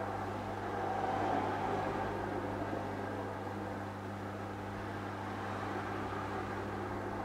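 Saltwater aquarium equipment humming steadily, a low constant hum under a soft whirring hiss.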